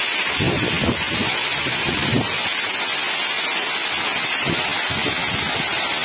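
Waterfall pouring down a rock face close by: a steady rushing hiss of falling water and spray.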